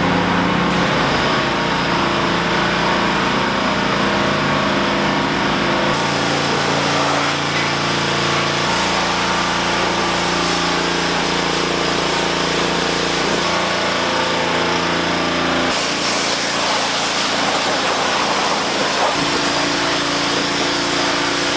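Pressure washer running, its water jet spraying a car's wheels and lower body: a steady hiss of spray over the hum of the pump. The sound changes abruptly about six and sixteen seconds in.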